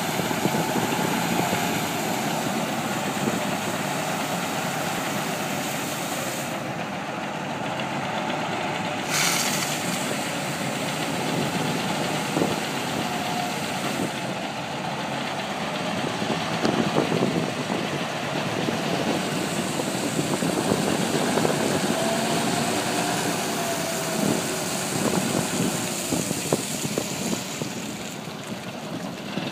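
1981 Peterbilt water truck's diesel engine running as the truck creeps along, with water hissing from its spray heads onto the dirt.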